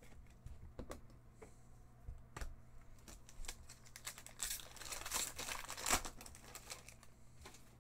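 Hockey card pack wrapper being torn open and crinkled, a rustling stretch about four seconds in ending in a sharp crackle. Before it, a few faint taps and clicks of cards being handled.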